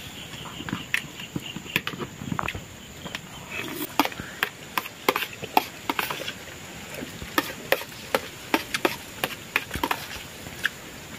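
A metal spoon tapping and scraping on a plate while eating rice, in many short irregular clicks.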